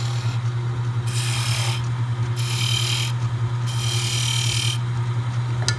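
Wood lathe running with a steady hum while a narrow steel turning chisel cuts rings into a small spinning wooden thimble: three scraping cuts, each about a second long, starting about a second in.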